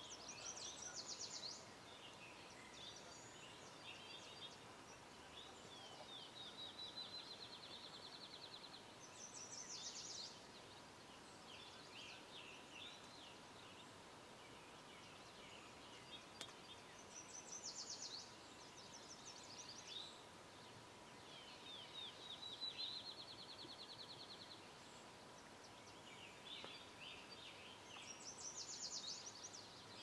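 Faint songbirds singing over near silence. Their phrases repeat every few seconds, among them a quick run of even notes lasting about two seconds that comes twice.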